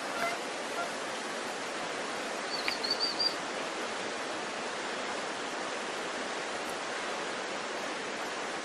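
Steady rushing of water, with a quick run of about five high chirps about three seconds in.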